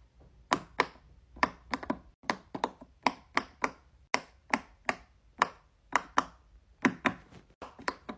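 Silicone pop-it fidget toy bubbles being pressed in one after another, about two dozen sharp pops in an uneven rhythm that taps out a song.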